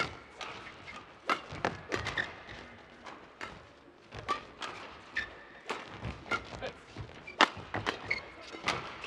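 Badminton rally: a quick string of sharp racket strikes on the shuttlecock, about one to two a second, with a few short shoe squeaks on the court floor.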